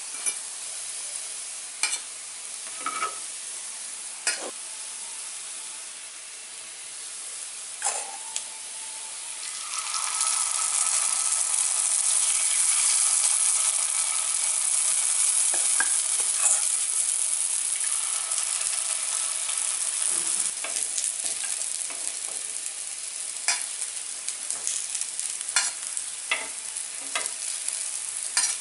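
Paniyarams frying in oil in a paniyaram pan: a low sizzle with sharp clicks of a metal tool against the pan as the cooked ones are lifted out. About ten seconds in, a loud sizzle swells as the next batch of batter goes into the hot oiled wells.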